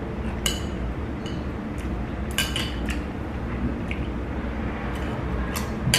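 A few light clinks of chopsticks against a noodle bowl, spread out and with a steady low hum underneath.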